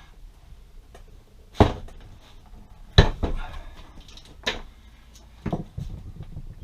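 IWISS IWS-1608M-C hand swage tool crimping a ferrule onto 1/8 inch wire rope: a handful of separate sharp clicks and knocks, the loudest about three seconds in.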